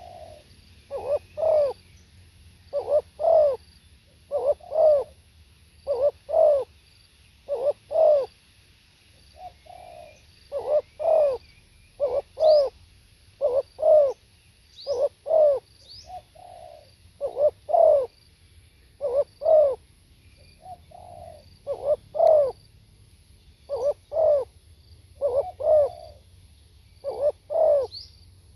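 Spotted dove cooing: short phrases of two or three low coo notes, repeated about every one and a half to two seconds, with a few softer single coos between phrases.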